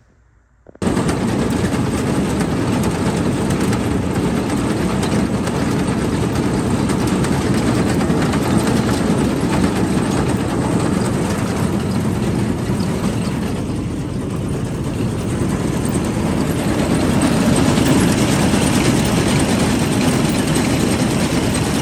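A tractor engine running steadily, driving a New Idea corn picker whose chains, elevator and fan are turning. The sound starts abruptly about a second in and grows a little louder about three-quarters of the way through.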